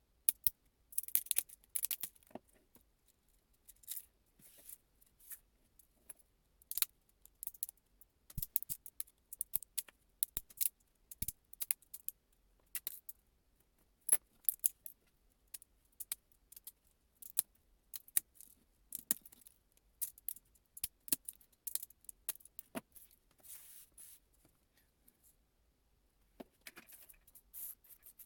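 Irregular small clicks, taps and light scrapes of hard objects being handled, scattered with short pauses between them.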